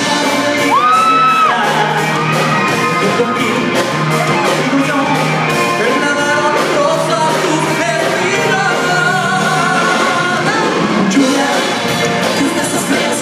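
Live pop band performance: male voices singing into microphones over electric guitar and a steady beat, with a high held cry about a second in.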